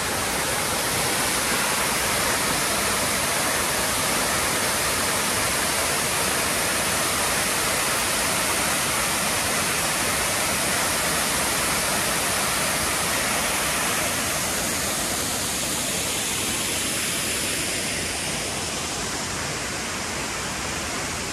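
Waterfall: a steady, dense rush of falling water, fairly loud, easing slightly near the end.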